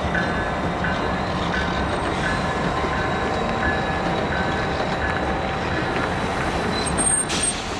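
Passenger train cars rolling slowly past with a steady rumble. A faint high ding repeats about every 0.7 seconds, and a short high squeal with a hiss comes near the end.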